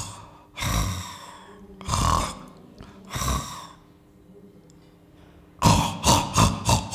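A sleeper snoring, one snore about every second and a quarter, then breathing stops and it goes quiet for about a second and a half. About five and a half seconds in, a quick string of choking gasps and snorts follows as the sleeper startles: the sign of an obstructive sleep apnea breathing pause.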